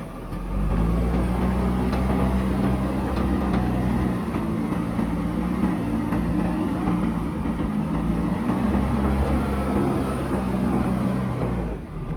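Diesel engine of a JCB backhoe loader running steadily as it works. The low engine note eases a little about a third of the way through, then builds again.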